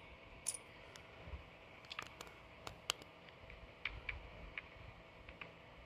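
Faint clicks from the online casino game's chip and button controls, one about half a second in and a scatter of short ticks between two and five seconds in.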